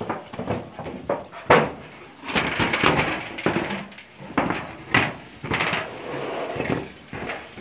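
Irregular knocks, bangs and rattles of corrugated metal roofing sheets under footsteps and handling, with the loudest bangs about a second and a half and five seconds in.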